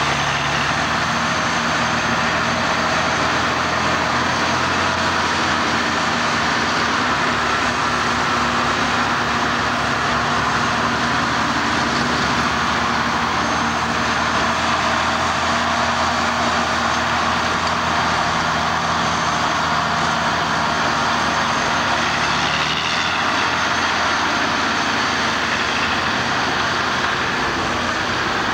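Diesel engines of AEC Mercury dump trucks running steadily as the loaded trucks drive across rough, muddy ground, the engine note shifting a few times.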